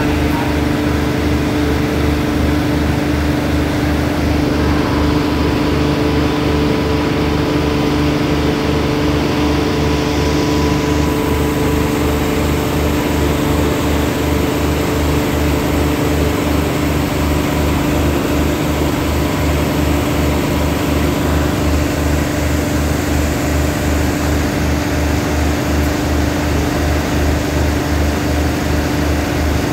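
Diesel multiple-unit railcar's engines idling as the train stands at the platform: a steady low throbbing with an even hum.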